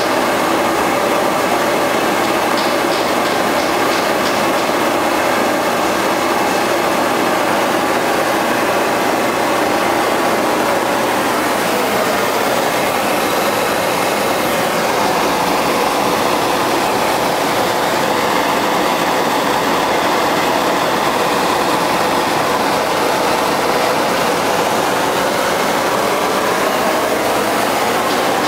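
Homemade naturally aspirated propane forge burner running with a steady rushing roar, its tone shifting slightly about halfway through.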